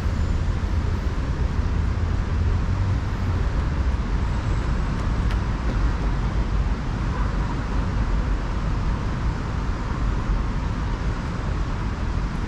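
Steady city road traffic: a low rumble under an even hiss of passing vehicles.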